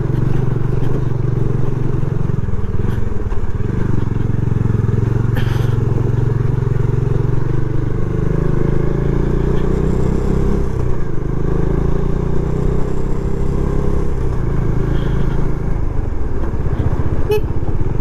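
Bajaj Dominar 400 motorcycle's single-cylinder engine running steadily as the bike is ridden along the road, with slight changes in engine speed.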